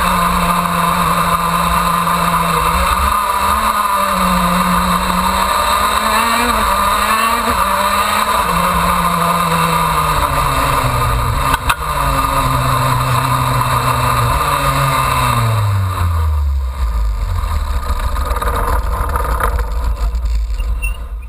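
KZ2 shifter kart's 125 cc two-stroke engine, heard from the kart itself, running at part throttle with its pitch stepping up and down. About fifteen seconds in the engine note falls steadily away to a low rumble as the kart slows to a crawl. There is one sharp click about halfway through.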